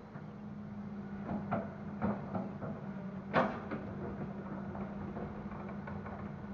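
Diesel engine of an excavator loading soil into a dump truck, running steadily, with a series of clunks and knocks from the bucket and load, the loudest about three and a half seconds in.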